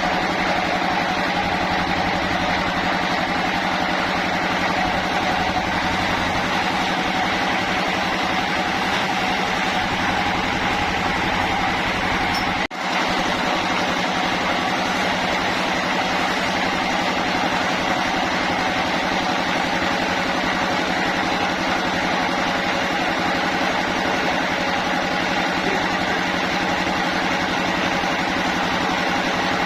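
Sawmill machinery running steadily: an unchanging engine-driven drone with a hum of several steady tones, broken by a momentary drop-out about twelve seconds in.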